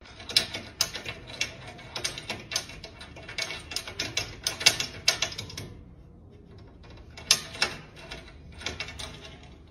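Metal latch on a pet cage's barred door clicking and rattling as a cat paws at it, trying to open it. The clicks come rapidly for about the first six seconds, then only a few scattered ones near the end.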